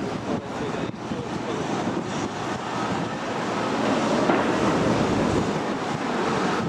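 Strong wind buffeting the camera microphone: a loud, rushing noise that swells and eases in gusts, building toward the middle.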